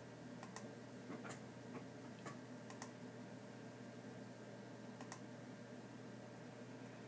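Faint computer mouse button clicks: a scattering in the first three seconds, some in quick double-click pairs, and one more about five seconds in, over a steady low hum.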